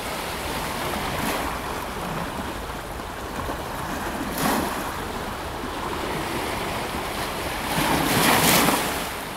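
Waves washing on the shore with wind: a steady rush of surf that swells briefly about four and a half seconds in and again, louder, near the end.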